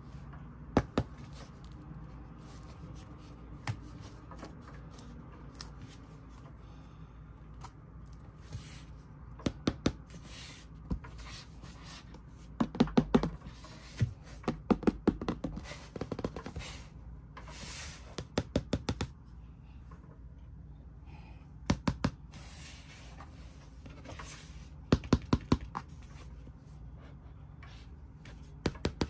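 Hands handling a stiff cardboard board book: clusters of sharp taps and clicks on the thick pages, with rubbing and page-turning sounds between them.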